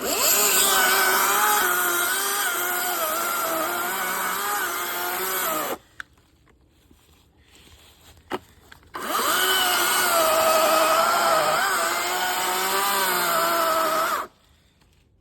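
Chainsaw cutting into a poplar trunk in two runs of about five seconds each, its pitch wavering under load. Each run stops suddenly, with a few seconds' pause between.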